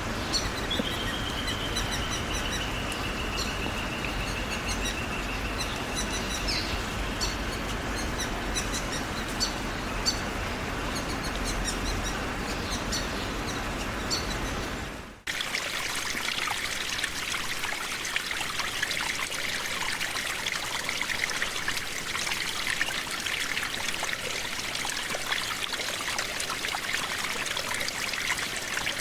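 Birds chirping, with one long trill near the start, over a steady wash of running water. About halfway it cuts suddenly to a steady trickling stream with no birds.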